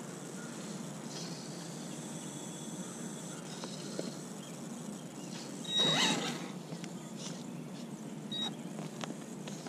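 Radio-controlled monster truck's electric motor whirring in one brief, wavering burst about halfway through as the truck drives on gravel, over a steady low background rumble.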